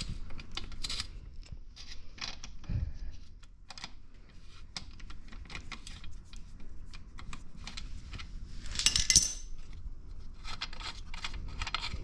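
Light metallic clicks and taps of hand tools and small bolts being handled during exhaust removal, with a brief bright jingling rattle about nine seconds in.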